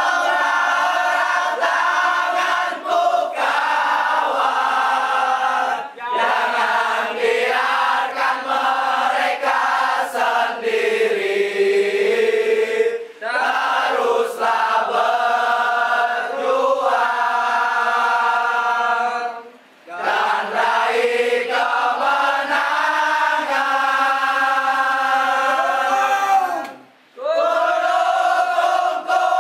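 Crowd of football supporters singing a chant together in unison, broken by a few short pauses.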